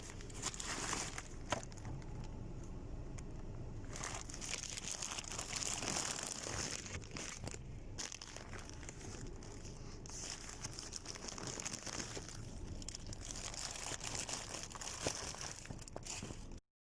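Rustling and crinkling handling noise with scattered light clicks, cutting off suddenly near the end.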